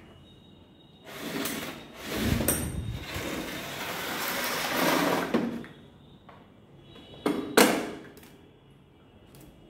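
Tool kit parts being handled: a few seconds of scraping and rustling, then two sharp clacks close together, the loudest sounds here.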